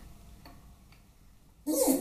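Light metal clicks, then a short, loud metallic scrape near the end as the shop press ram is backed off the steel pressing tube sitting in the engine case.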